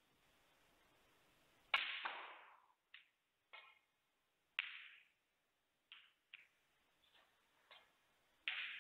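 Snooker cue tip striking the cue ball with one sharp click, then a string of shorter clicks and knocks at uneven gaps as the balls collide and roll, a red being potted. One louder knock comes near the end.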